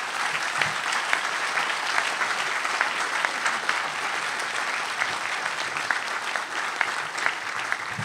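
Audience applauding: dense, steady clapping of many hands at the close of a talk.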